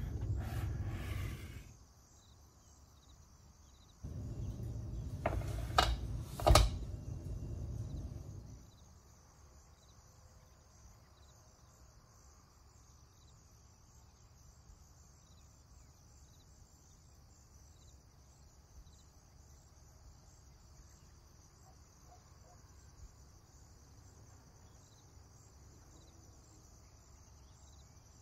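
Steady high insect chirping, like crickets, throughout. A few seconds in, a low rumble of handling noise rises for about four seconds, with two sharp knocks in quick succession near its middle.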